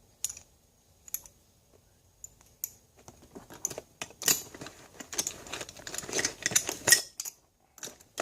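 Metal hand tools clicking and rattling as they are handled and pulled from a tool bag: a few scattered clicks at first, then denser clatter from about four to seven seconds in.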